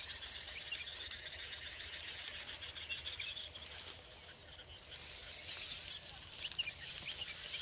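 Outdoor field ambience: insects trilling steadily, with scattered crackles and rustles of dry cut straw as someone walks through it.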